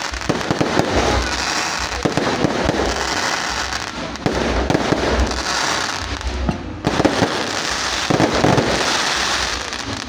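Fireworks going off without pause: a dense, unbroken stream of bangs and crackling, swelling in waves every couple of seconds.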